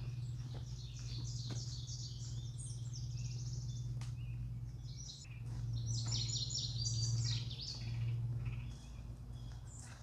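Songbirds singing in woodland, two bursts of quick repeated high notes, over a steady low hum, with a few faint clicks.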